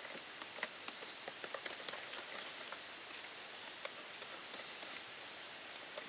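A spoon stirring batter in a metal mixing bowl, with light, irregular clicks and scrapes as it knocks against the bowl.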